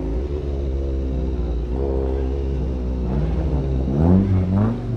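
Motorcycle engines idling steadily, with an engine revved up and down a few times in the second half.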